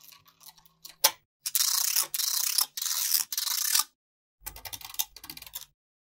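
Small magnetic balls clicking together as clusters are snapped onto a block of them: a few sharp clicks, then three runs of rapid, dense rattling clicks about a second and a half in, followed by softer quick clicking.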